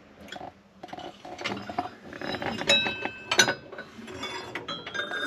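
China teacups and saucers clinking against each other and the glass shelves of a china cabinet: a few sharp clinks that ring briefly, the loudest a little past the middle and again near the end.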